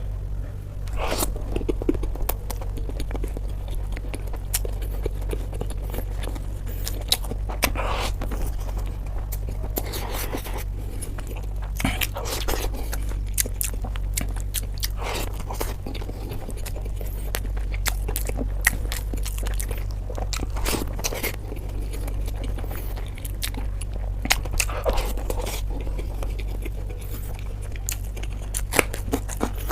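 A person eating close to the microphone: biting, chewing and crunching with occasional scraping, over a steady low hum.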